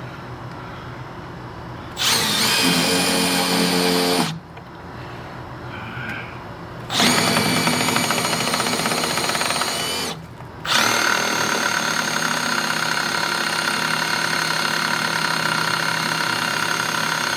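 Power drill running in three bursts, drilling into a wooden fence post: about two seconds, then about three seconds, then a longer steady run that starts right after a brief stop.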